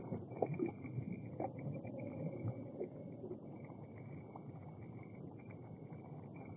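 A few light water splashes as a released bass kicks away through shallow water. They fade within the first couple of seconds into faint, steady outdoor background noise.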